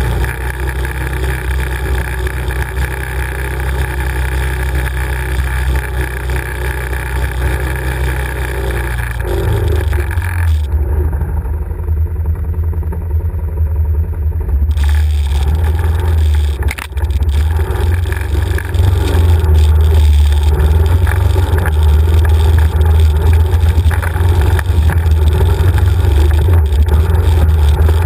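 Can-Am ATV's V-twin engine running under way over a rocky trail, a steady low drone. The sound goes dull for a few seconds near the middle, and the engine is louder through the second half.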